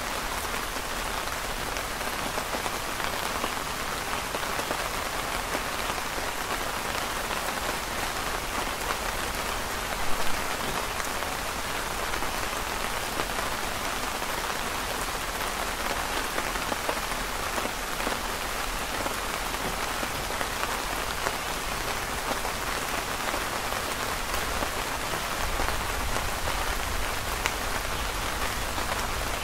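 Steady rain pattering on the canopy fabric overhead, with two louder taps close together about ten seconds in.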